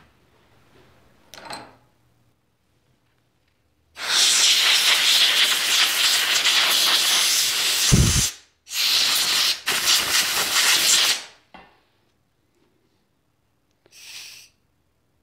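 Pressurised spray hissing through a thin nozzle as a small motorcycle fuel tap is blasted clean: two long bursts of several seconds each, a low thump near the end of the first, and a short burst near the end.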